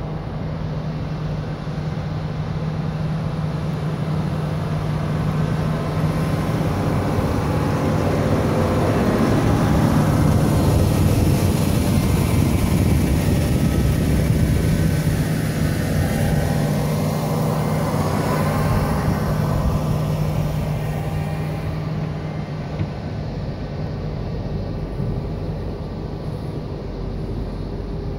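A steady engine drone that swells to its loudest around the middle and then fades, like a motor passing by.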